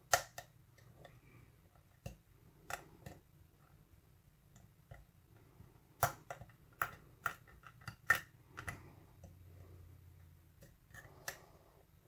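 Steel lock pick scraping and clicking on the pin stacks of a 5-pin Schlage lock cylinder held under tension, with irregular sharp clicks, several in quick succession about six to eight seconds in and another near the end. The clicks are pins catching and setting, in a lock the picker feels holds many serrated pins.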